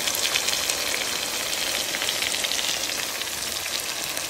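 Curry-seasoned chicken pieces frying in hot oil in a metal pot: a steady sizzle with many small crackles.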